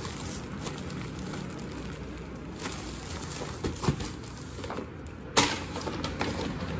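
Plastic-wrapped packs of facial cotton pads being handled and crinkled during unpacking, with scattered light taps and one sharper knock about five seconds in.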